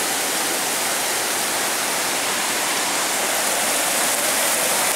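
Small mountain stream cascading over rocks: a steady rushing of water.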